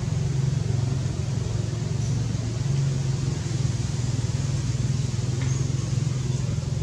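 A steady low engine-like hum with an even rumbling noise behind it, holding constant throughout.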